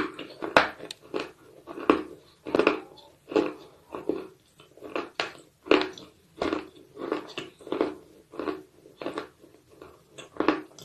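Someone chewing slate bars close to the microphone: a steady run of dry, gritty crunches, about one every half to three-quarters of a second, as the hard mineral bars break up between the teeth.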